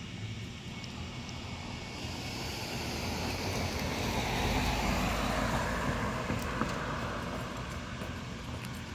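A vehicle passing by: a rushing noise that swells to its loudest about halfway through and then fades, dropping in pitch as it goes.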